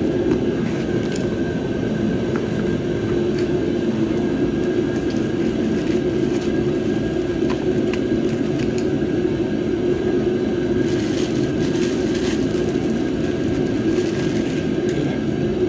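Steady mechanical whir of a running machine in the shop, even throughout. Light clicks and a couple of brief rustles of handling come in the second half.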